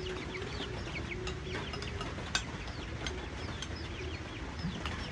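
Chickens peeping: a steady run of short, high, falling peeps over an even hiss, with a single sharp click about two and a half seconds in.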